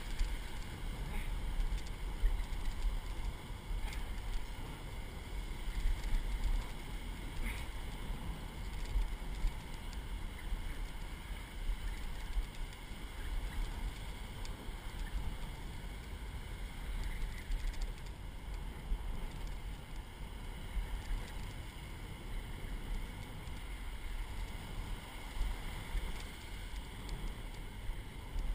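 Wind buffeting the microphone over the steady wash of small breaking surf.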